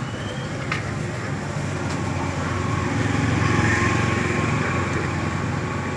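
Traffic noise: a steady motor hum that swells to its loudest about three and a half to four seconds in, then eases off.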